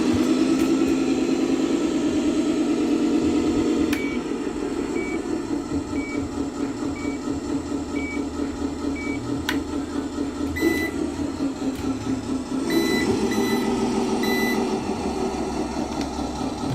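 Scania 620 truck engine running, with a reversing beeper sounding about once a second for several seconds and a few more beeps later. The engine note is louder at the start and rises again near the end.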